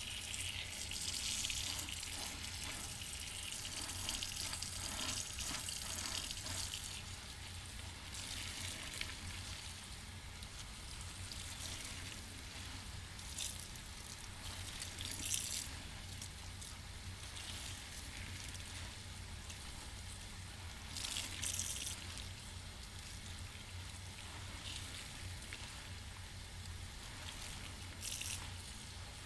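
A soapy sponge being rinsed in running water and squeezed, with water splashing, trickling and dripping. Louder gushes of squeezed-out water come in surges several seconds apart.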